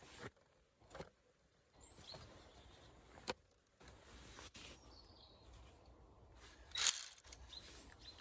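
Scattered clicks and knocks from hand work on plastic engine-bay parts, with a loud rustle about seven seconds in. Faint bird chirps are heard outdoors.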